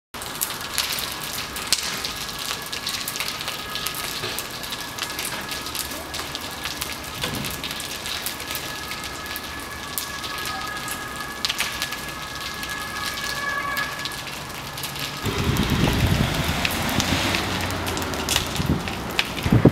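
Balcony fire crackling and popping steadily, with a steady high-pitched tone running underneath. About fifteen seconds in, this cuts to a louder low rumble.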